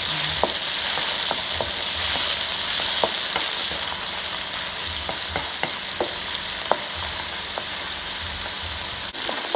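Diced pork sizzling in hot oil in a wok, with a steady hiss and scattered short clicks as a wooden spoon stirs and scrapes the pieces around the pan.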